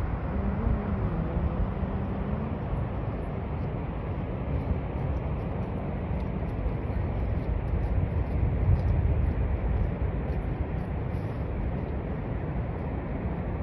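Niagara Falls' water rushing: a steady noise, heaviest in the low end.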